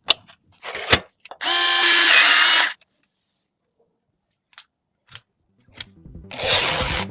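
A small electric power tool, such as a cordless screwdriver, whirs at a steady pitch for about a second, preceded by a few light clicks. Near the end there are two more light clicks and a short noisy burst.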